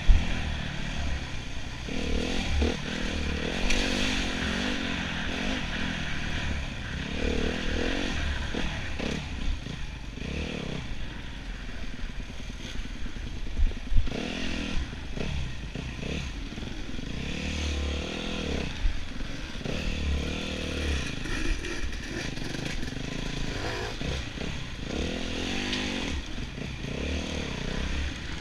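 Enduro motorcycle engine rising and falling in pitch as the rider works the throttle on an off-road course, with clattering and sharp knocks from the bike over rough ground, one near the start and one about halfway through.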